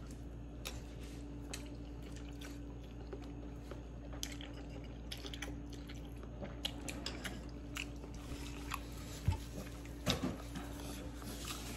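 A man chewing and slurping noodles in broth, with small clicks of a metal spoon against a ceramic bowl and a few sharper knocks near the end, over a steady low hum.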